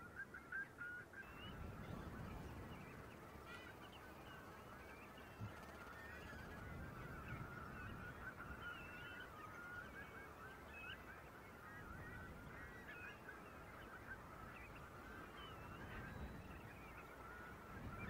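A large mixed flock of waders and waterbirds calling without pause: many short, overlapping calls, with a low rumble of wind beneath.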